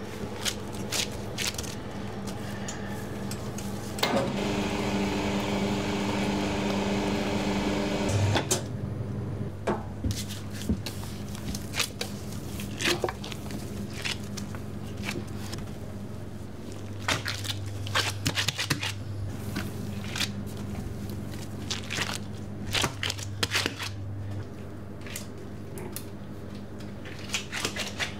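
A large batch of sticky pizza dough being pulled by gloved hands from the steel bowl of a spiral dough mixer, with many irregular sharp clicks and crackles as the dough tears and pulls away. A low machine hum runs underneath, and about four seconds in a motor runs for about four seconds.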